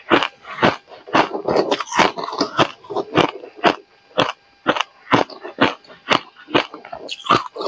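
Hard ice being bitten and chewed close to the microphone: sharp crunches about twice a second, with a denser run of crackling chews in the first few seconds.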